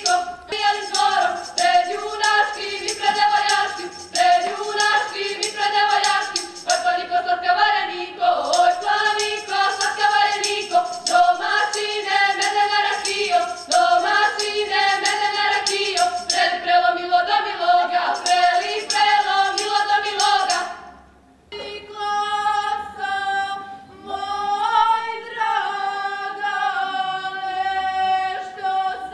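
A group of women singing a South Slavic folk song together, accompanied by a steady beat of sharp strikes. About 21 seconds in the singing breaks off briefly and resumes as unaccompanied, long-held choral notes.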